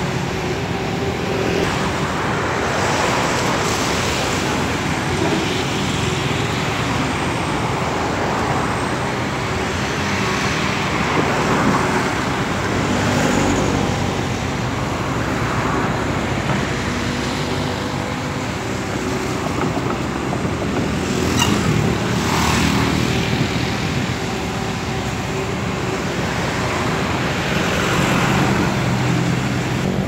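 Caterpillar 320D tracked excavator's diesel engine running steadily as the machine slews and lowers its boom into a roadside ditch, with road traffic swelling past several times.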